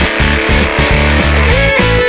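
Background rock music with electric guitar over a steady beat; a held melody line comes in about one and a half seconds in.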